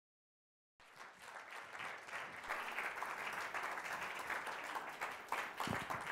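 Audience applauding, cutting in abruptly about a second in and continuing steadily.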